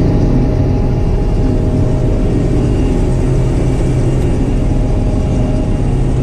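Claas combine harvester running steadily while cutting wheat, heard from inside the cab: a constant engine and machinery roar with steady humming tones and no change in pitch.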